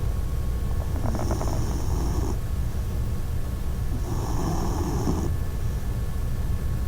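A four-month-old puppy snoring in its sleep: two snores about three seconds apart, each lasting a little over a second, the first with a rattling flutter at its start, over a steady low rumble.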